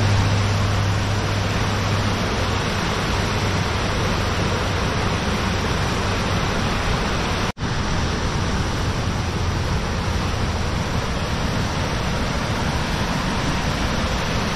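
Rushing river water, cascading over rocks and pouring through a natural rock dam: a steady, even rush that drops out for an instant about seven and a half seconds in.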